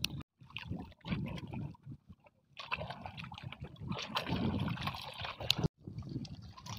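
Small waves lapping and gurgling against the boulders at the water's edge.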